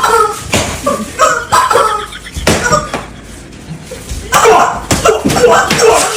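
Several sharp smacks and knocks, mixed with short bursts of voices and laughter.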